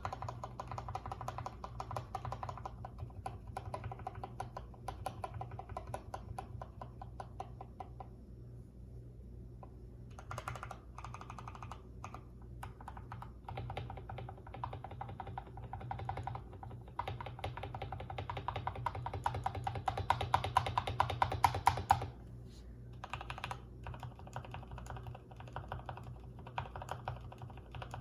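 Typing on a Durgod Hades 68 mechanical keyboard fitted with Gateron Yellow linear switches: a steady clatter of keystrokes that eases off about eight seconds in, then a faster, louder run of typing before settling back to a steadier pace.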